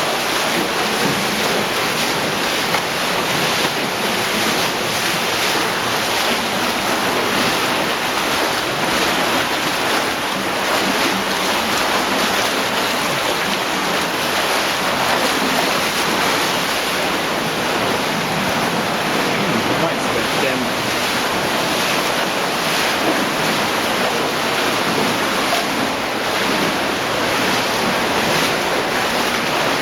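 Steady roar of a cave stream in near-flood spate, the water rushing loudly through the passage.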